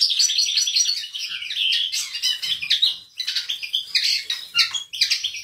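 Caged European goldfinches singing: a fast, high twittering run of chirps, broken only by short pauses about three seconds and about five seconds in.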